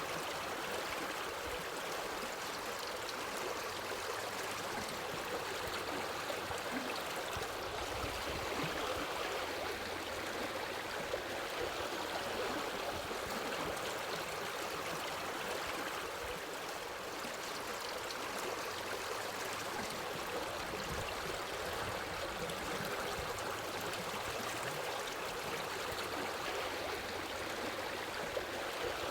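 Steady running water, like a flowing stream, without a break or change.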